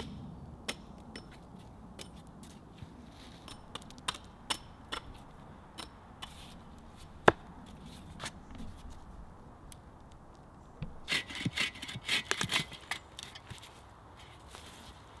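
Hatchet work on wood: scattered sharp knocks, the loudest about seven seconds in, then a run of quick rasping strokes on a log near the end.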